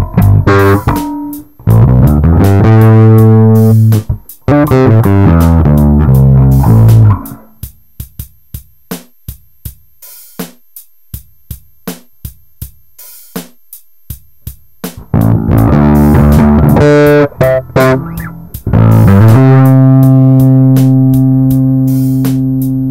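Warwick RockBass Streamer electric bass, with boiled strings, played through a Korg Pandora PX5D multi-effects unit. A run of loud plucked notes gives way about halfway through to a quiet stretch of short, clicky muted notes. More notes follow, and then one low note is left ringing and slowly fades near the end.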